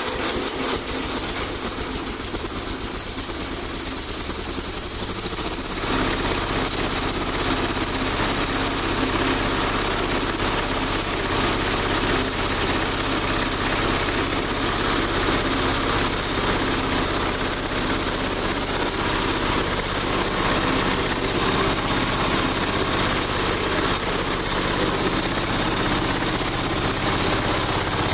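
Gravely walk-behind tractor engines, cold-started in freezing weather, running steadily. About six seconds in, a deeper low note joins and the sound gets slightly louder, as a second engine starts running.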